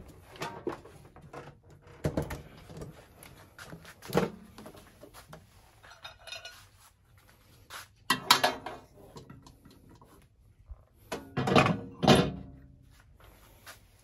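Knocks and clinks of a microwave oven being handled and set up for a test, with items set down inside its cavity on the glass turntable plate. There are several separate knocks, the loudest near the end.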